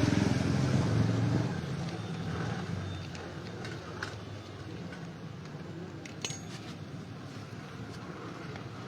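A motor vehicle's engine running, loud for the first second and a half and then fading into steady traffic noise, with a few light clicks.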